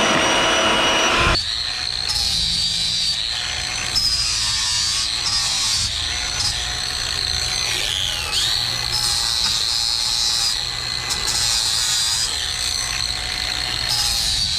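Handheld grinder cutting a metal bar clamped in a bench vise: a steady high whine with hiss and brief dips as the wheel bites. For about the first second and a half the motor runs with a different, lower pitched whine before the cut sound begins.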